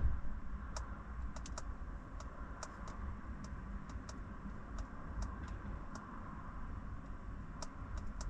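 Light, sharp clicks at an uneven pace, like typing, with a pause of over a second near the end before a last quick cluster, over a low steady rumble. A single thump right at the start is the loudest sound.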